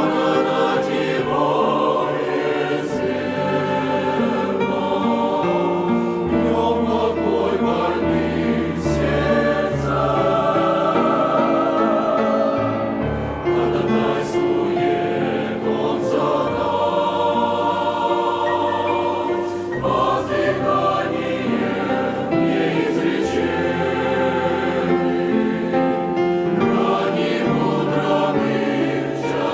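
Church choir singing a hymn in several voice parts, holding long chords phrase by phrase.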